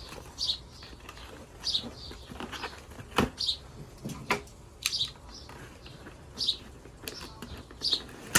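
Short high chirps from a bird, repeating every second or so, over scattered clicks and knocks as an airsoft pistol and its packaging are handled.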